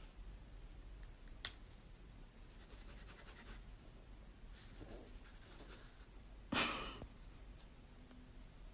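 Faint scratching of a pen writing on notebook paper, in short stretches, with a light click about a second and a half in. A single breathy sigh about two-thirds of the way through is the loudest sound.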